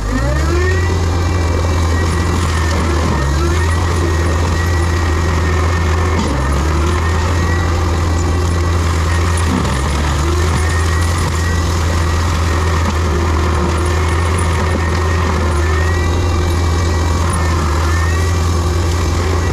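Diesel engine of heavy land-clearing equipment running steadily under load, with a higher whine above it. The pitch dips and recovers several times as the machine works.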